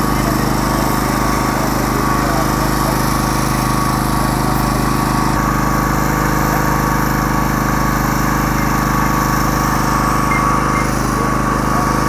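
Steady engine hum of a running generator, even and unchanging throughout.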